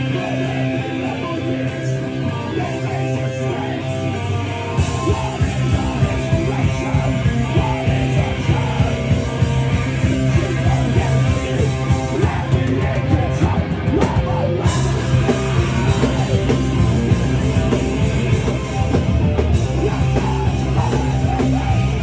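Hardcore punk band playing live: distorted electric guitar and bass with a vocalist on the microphone, and fast drumming that comes in about five seconds in and fills out the low end.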